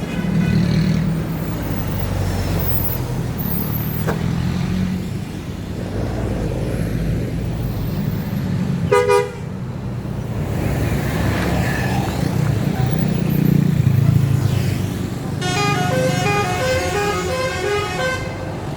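Bus engine running, with a short horn blast about halfway through and then a multi-note telolet horn playing a stepping melody for about three seconds near the end.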